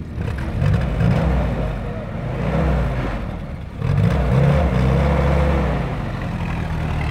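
Willys jeep's four-cylinder engine running and being revved in several surges, its pitch rising and falling, then settling to a steadier run near the end.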